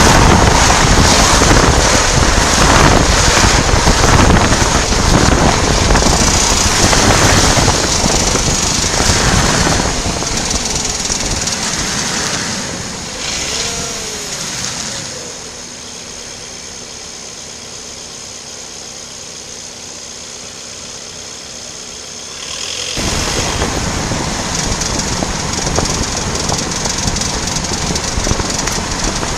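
VW Passat B8 car in motion: dense engine and road noise that eases off about halfway through to a quieter stretch with a steady low hum, then jumps back up abruptly near the end.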